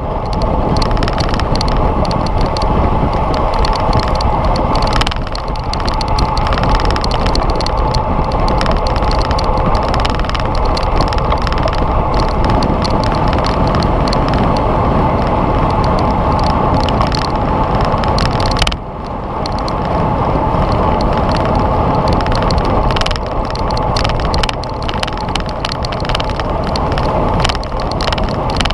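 Bicycle ridden at road-race speed, heard from a camera mounted on the bike: a loud, steady rush of wind and tyre noise. It eases for a moment about two-thirds of the way through.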